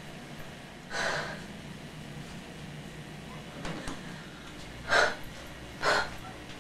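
A frightened woman's heavy breaths, three short gasps: one about a second in, then two more near the end a second apart, over a faint steady low hum.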